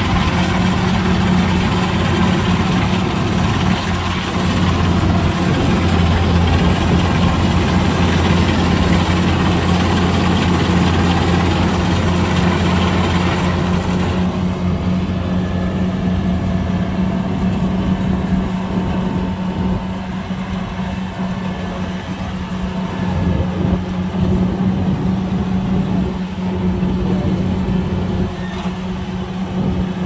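Kubota DC-105X combine harvester's diesel engine running steadily under load as it cuts standing rice, a deep even hum over mechanical noise. The higher clatter falls away about halfway through while the low hum carries on.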